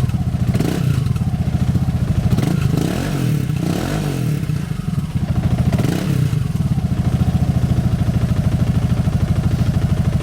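Honda SH300i scooter's single-cylinder engine running through a MIVV Stronger aftermarket exhaust: a few light throttle blips in the first half, then a steady idle. Fairly quiet for an aftermarket system.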